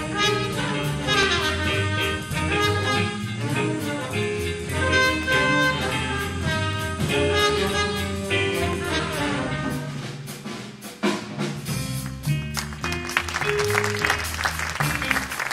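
Instrumental background music in a jazz style with brass horns, dipping briefly about ten seconds in before carrying on.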